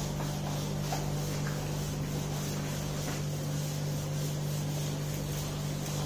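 Whiteboard duster rubbing across a whiteboard, wiping the marker writing off, over a steady low hum.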